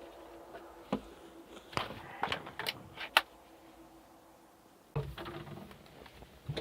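Handling sounds: a few sharp clicks and knocks between about one and three seconds in, then a short low clunk with a brief hum about five seconds in. No engine cranking or running.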